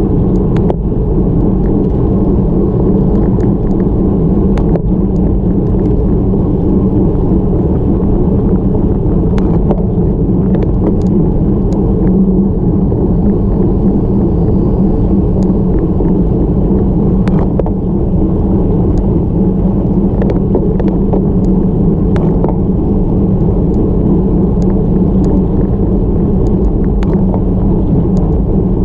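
Steady low wind rumble buffeting an action camera's microphone on a road bike climbing at around 20 km/h, with faint scattered ticks.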